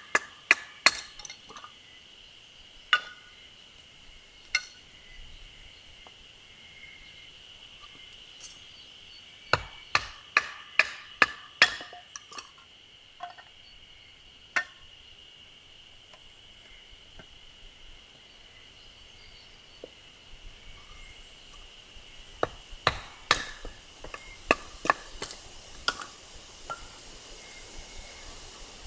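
Firewood being split by hand: sharp knocks of a blade and striker biting into wood, in quick runs of several blows with pauses between, like batoning a log apart.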